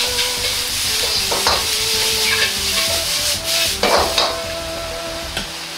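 Sausage and vegetables sizzling steadily as they are stir-fried in a wok over high heat, a metal wok ladle stirring and scraping against the pan, with sharper scrapes about a second and a half in and again near four seconds.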